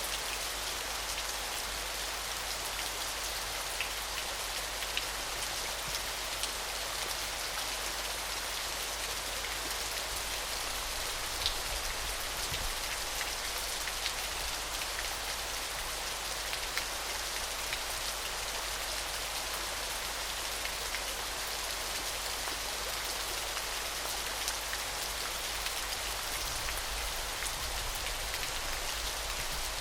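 A small waterfall splashing steadily: an even high hiss of falling water, flecked with scattered faint droplet ticks.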